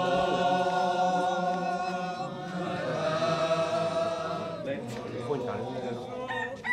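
A group of voices chanting together in unison, holding one long note for about two and a half seconds and then a second long note from about three to nearly five seconds in, with shorter calls near the end.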